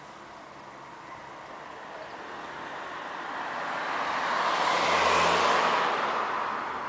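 Aircraft passing overhead: a broad rushing noise that swells to its loudest about five seconds in, then fades.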